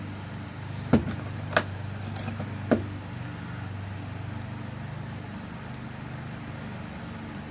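Small metal parts of a pin-tumbler lock cylinder clicking and clinking as the tail piece is fitted and screwed back on: four sharp clicks in the first three seconds, then only a steady low hum.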